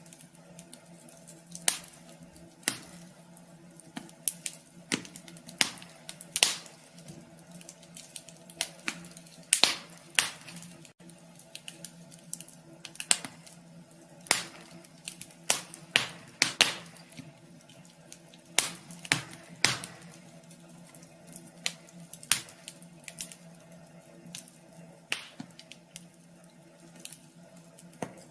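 Wood fire crackling in a wood stove: irregular sharp pops and snaps, sometimes several close together, over a faint steady hum.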